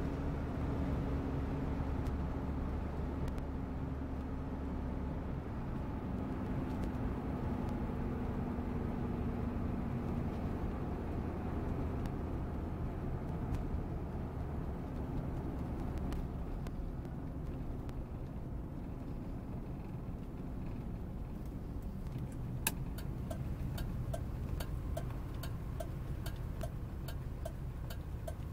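Cabin sound of a 1975 Cadillac Sedan DeVille's 500-cubic-inch V8 and tyres: a steady low rumble with a hum that fades as the car slows off the highway. Near the end a click is followed by regular ticking from the turn-signal flasher.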